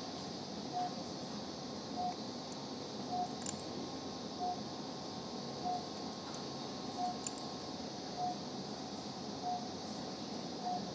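Anaesthesia patient monitor giving a short, steady-pitched beep with each heartbeat of the anaesthetised dog, about every 1.2 seconds, over the steady hum of operating-room equipment. A few faint clicks of metal surgical instruments come through as well.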